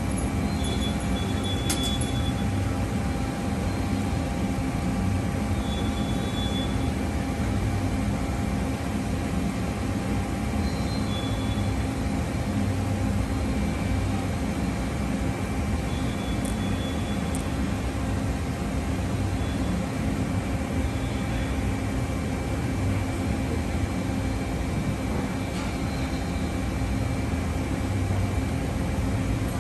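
Steady machine hum of a powered-up Mori Seiki ZL-35MC CNC lathe, with a short high tone recurring about every five seconds.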